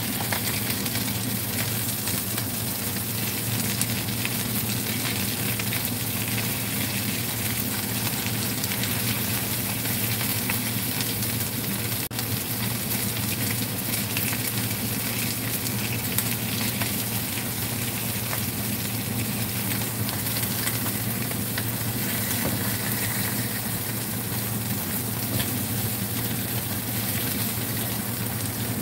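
Mayao fish pieces frying in a little cooking oil in a nonstick pan: a steady sizzling hiss, with a constant low hum underneath.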